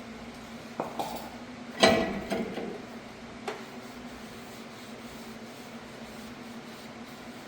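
Metal brake parts being handled: a few sharp metallic knocks and one loud clank with a brief ring about two seconds in, over a steady low hum.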